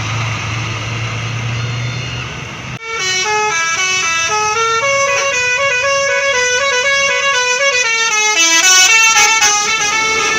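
Road-vehicle noise with a low engine hum, then, about three seconds in, an abrupt switch to a basuri 'telolet' multi-trumpet bus horn playing a tune of quick, stepping notes, loudest near the end.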